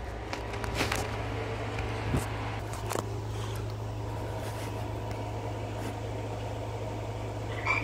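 A steady low mechanical hum with a few faint clicks about one, two and three seconds in.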